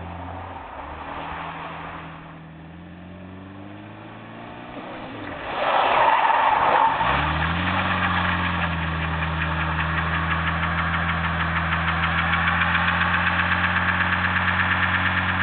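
Ford Taunus engine revving as the car moves off, then a loud surge about six seconds in. After that the engine is held at steady high revs while the rear tyres spin in a burnout, a continuous rippling screech over the engine.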